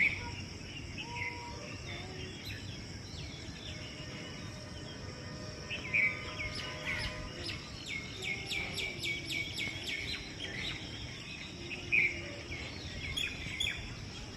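Several birds calling in a morning chorus. One louder rising call comes three times, about six seconds apart, and a quick run of repeated chirps at about five a second comes in the middle, over a steady high insect drone.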